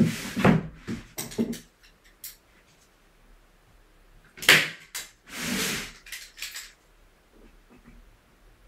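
A hand staple gun fires once with a sharp clack, driving a staple through the canvas into the wooden stretcher frame about halfway through. Around it come rustling and knocking as the canvas and frame are shifted and pulled.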